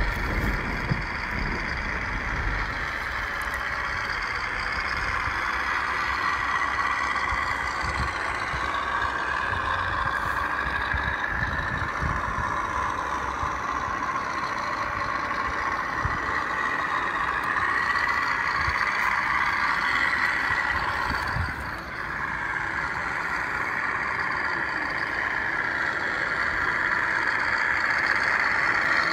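A radio-controlled Scania dump truck running over a dirt trail, making a steady whine from its drive that drifts up and down in pitch with its speed. The sound drops briefly about two-thirds of the way through.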